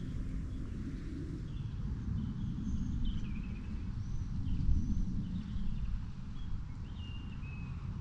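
A low, uneven rumble of wind on the microphone, with a small songbird's faint high chirps and short descending whistles from about two seconds in.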